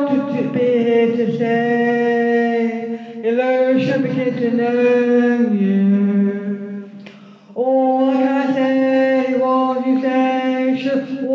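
A woman singing a slow song without accompaniment, holding long notes, with a short break for breath about seven seconds in.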